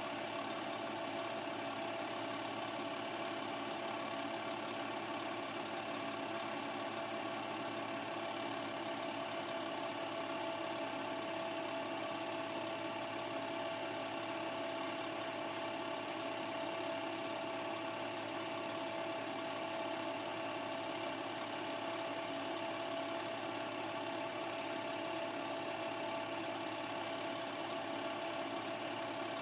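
Cine film projector running: a steady mechanical whir with a constant tone over it.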